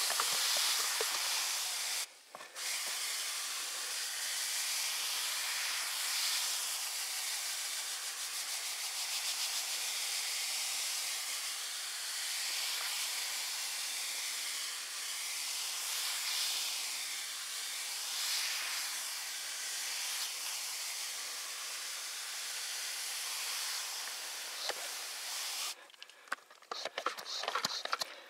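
Hand pressure sprayer hissing as its lance nozzle sprays water into the froth on a bucket of ore slurry, breaking the froth down. The hiss is steady, cuts out briefly about two seconds in, and breaks up near the end.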